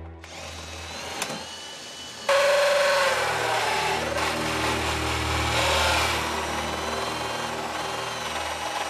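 Power drill turning a bi-metal cobalt hole saw that cuts into a stainless steel sink. The drill starts, and about two seconds in the level jumps as the teeth bite into the steel, giving a loud, wavering metallic whine over the motor until the end.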